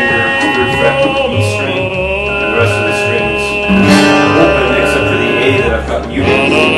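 Upbeat orchestral pop music with a man singing over a bouncing bass line that moves about twice a second.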